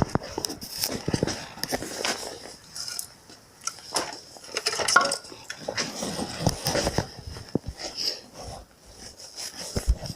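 Irregular clinks, taps and knocks of small hard objects, like metal tools and parts being handled and set down.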